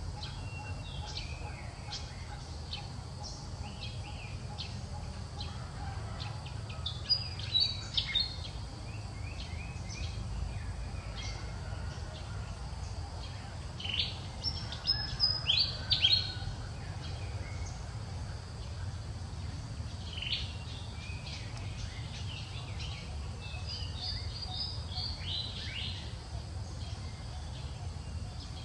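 Birds chirping: short, high calls in clusters, loudest about seven seconds in and again around fifteen seconds in, over a steady low background hum.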